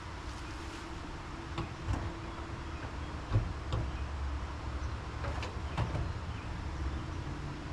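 Handling of a boxed mobile tool workbench and its packing: a handful of light knocks and clicks, the loudest about three and a half seconds in, over a steady low hum.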